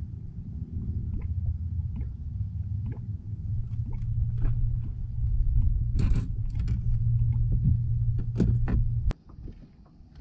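Angler handling a caught fish on a boat deck, with light taps and clicks, then a splash about six seconds in as the fish is tossed back into the lake, over a steady low hum that cuts off suddenly near the end.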